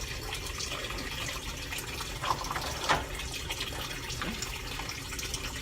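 Kitchen tap running into a sink during hand dishwashing, a steady rush of water, with a couple of brief clinks of dishes about two and three seconds in.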